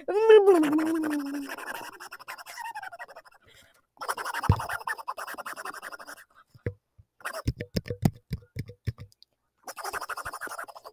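A person making silly noises with the voice and mouth. It opens with a short falling whine over about the first second and a half. Bursts of raspy, scratchy hissing follow, broken by a run of irregular clicks and pops.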